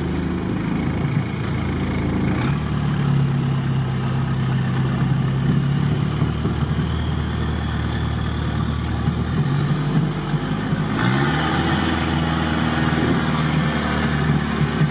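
Off-road car's engine idling steadily with no throttle. About two and a half seconds in the note shifts, and about eleven seconds in an engine's pitch rises as it picks up revs.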